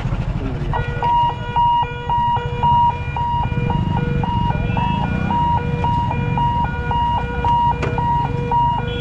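Electric warning hooter of a railway level-crossing boom barrier beeping rapidly, about two to three beeps a second, starting about a second in as the boom lifts. Motorcycle engines idle underneath.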